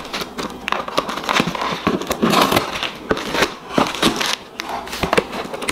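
Cardboard shipping box being opened by hand: flaps scraping and bending, with packaging crinkling and crackling and many small irregular knocks.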